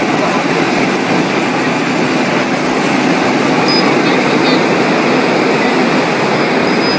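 Steady rushing air noise of a CO2 laser marking machine running while it engraves leather. A thin high whine steps down in pitch about three and a half seconds in.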